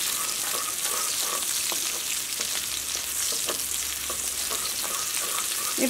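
Sliced green chillies and curry leaves sizzling steadily in hot sunflower oil in a stainless steel pan, with a wooden spatula scraping or tapping lightly a few times. The sizzle is the chillies' moisture frying out, which must be done fully or the ginger curry spoils quickly.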